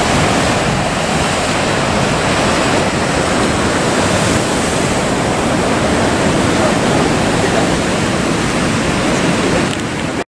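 Heavy ocean surf breaking and churning at a harbour entrance: a loud, steady rush of water. It cuts out abruptly at the very end.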